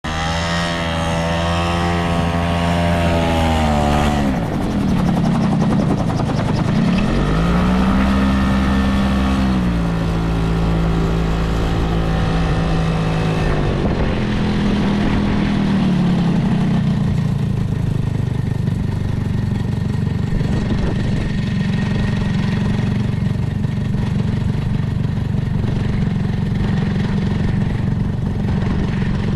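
Small gyrocopter's engine and pusher propeller running as it taxis. The engine note rises and falls several times, then settles to a steady idle about seventeen seconds in.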